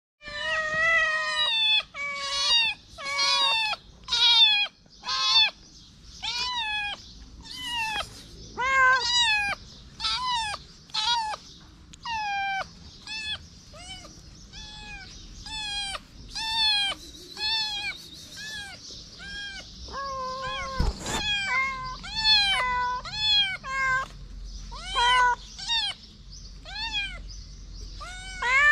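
Street cats, a kitten and an adult, meowing over and over, one or two short calls a second, each rising and falling in pitch and sometimes overlapping.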